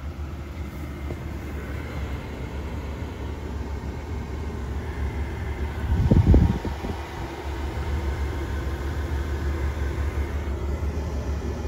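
Chevrolet Silverado 1500's 5.3-litre V8 idling as a steady low rumble, heard from inside the cab. A short bump of the camera being handled comes about six seconds in.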